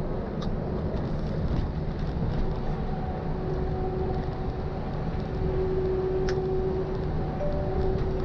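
MAN heavy truck cruising on the motorway, heard from inside the cab: steady engine and tyre-on-road rumble. A faint steady whining tone grows a little stronger about halfway through.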